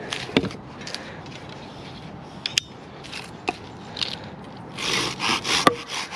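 Small folding hand saw working into an ash pole: light scrapes and taps at first, then about five seconds in a run of quick, louder back-and-forth saw strokes.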